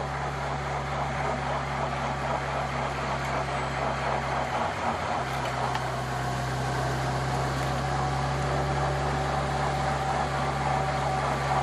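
Engine of the camera vehicle following the cyclist running steadily at speed, with wind and road noise; the low engine hum drops out briefly about five seconds in.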